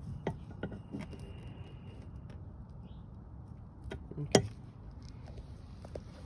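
Light metallic clicks and clinks of brake caliper parts and hand tools being handled during greasing, a few in the first second and a single sharp click about four seconds in that is the loudest, over a low steady rumble.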